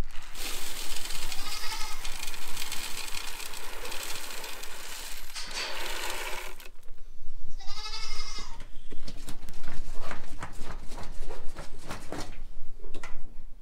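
Animal feed poured from a plastic scoop into a wooden feeder box, a steady rattling rush lasting about six seconds. About eight seconds in, a goat bleats once with a wavering call, followed by a run of light clicks and taps.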